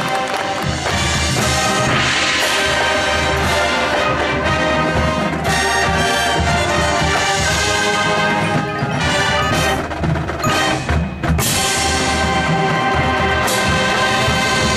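Marching band playing: brass winds carrying sustained chords over front-ensemble percussion, with sharp accented hits about two seconds in and again about eleven seconds in.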